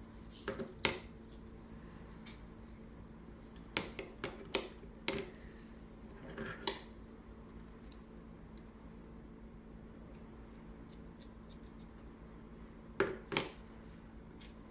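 Small metal hardware clicking and knocking as screws and standoffs are handled and screwed into a frame plate: scattered sharp clicks in short clusters, with a long quiet stretch in the middle.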